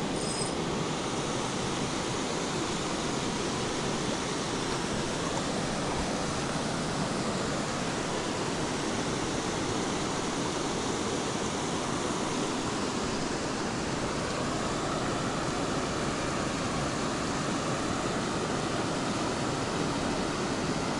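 Steady rushing of river water pouring over a small weir.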